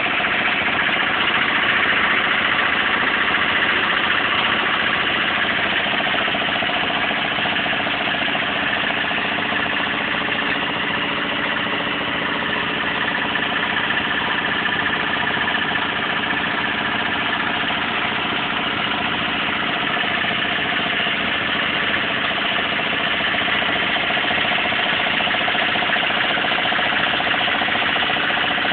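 Engine-driven compressor running steadily at a constant speed, with no change in pitch or level.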